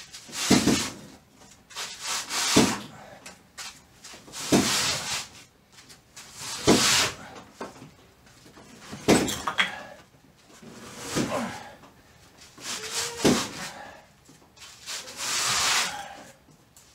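A man's effortful grunts and hard exhales, one about every two seconds, eight in all, as he shoves a car sideways on wheel dollies.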